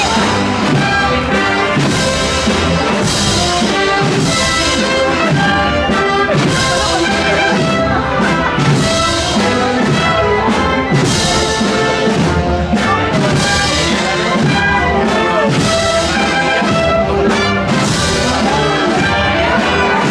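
A procession band plays a march on trumpets and trombones over a steady beat of drums and cymbals.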